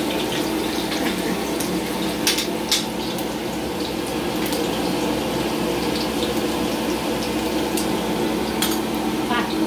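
Fish sizzling steadily in hot oil in a stainless saucepan over a gas burner, with a couple of sharp utensil clinks a little over two seconds in.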